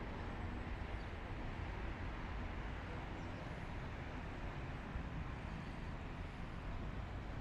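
Steady city ambience dominated by a low hum of distant road traffic, with no distinct events.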